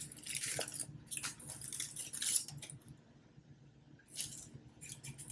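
Kitchen handling sounds as food is served onto a plate: a string of short scrapes and light clinks of utensils and dishes, busiest in the first couple of seconds and again near the end, over a low steady hum.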